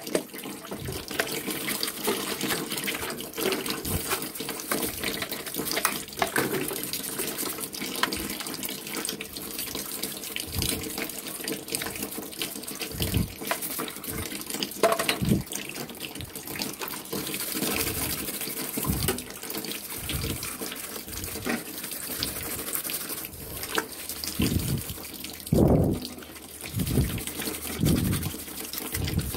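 Water sloshing and splashing in a basin of soapy water as metal fan parts are scrubbed with a brush, with short knocks scattered throughout and a louder cluster of them near the end.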